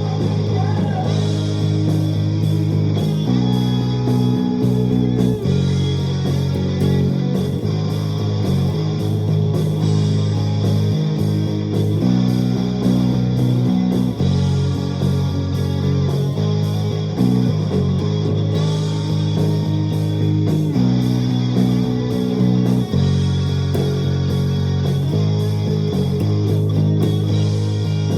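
Luxars S-KB20 travel-size electric bass playing a rock line, its low notes held and changing every second or two, over a backing track with a steady beat.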